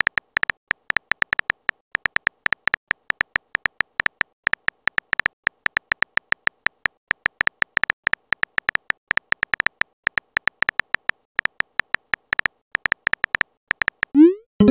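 Simulated phone-keyboard typing clicks from a texting-story app, a fast, irregular patter of short high ticks as a message is typed letter by letter. Near the end comes a short rising swoop, the message being sent.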